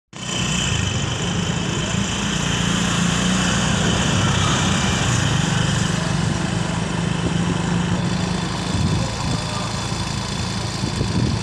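A motor vehicle's engine running steadily, with a constant low hum and a layer of road or wind noise that eases off about eight seconds in.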